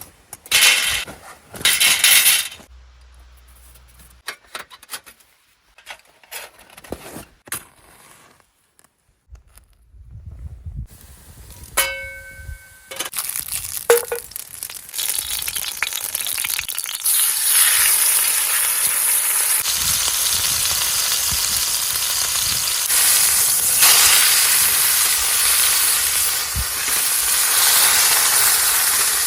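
Scattered clicks and handling knocks, then from about fifteen seconds in a steak sizzling over a campfire: a steady, loud frying hiss that holds to the end.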